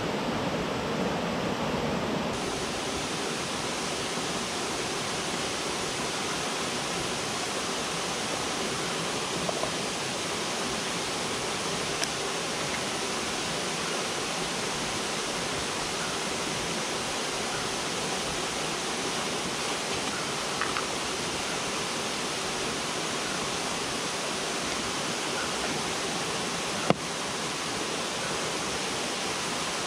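Steady rush of river water flowing, with a few faint clicks and one sharp click near the end.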